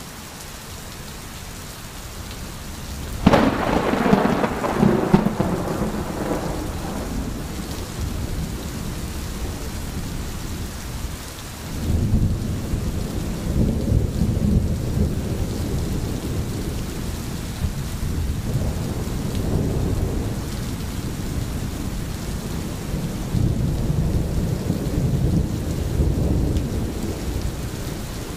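Thunderstorm with steady rain. About three seconds in, a sharp thunderclap crackles and rolls away over several seconds. From about twelve seconds on, a long, deep rumble of thunder rolls on under the rain.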